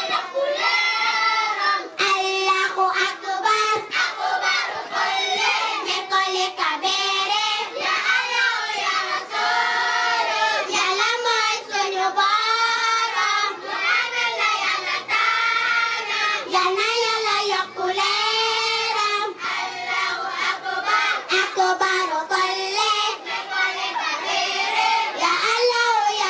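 A child singing a melodic chant in a high voice, in long bending phrases with short breaks between them.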